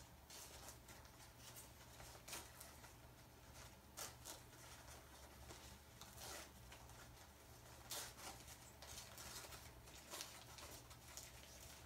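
Faint rustling and crinkling of paper packaging being unwrapped by hand, in short irregular crackles every second or two, over a low steady hum.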